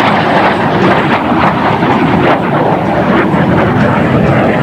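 Loud, steady engine noise from a jet fighter as it flies a low pass and pulls up into a climb.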